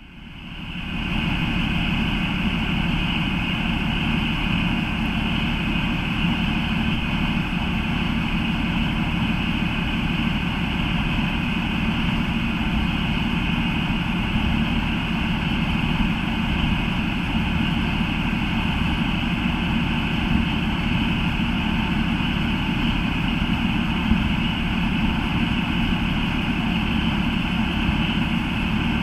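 Diesel engine of a Class 153 railcar idling steadily while the unit stands at the platform, coming up to full level within the first second and then holding even.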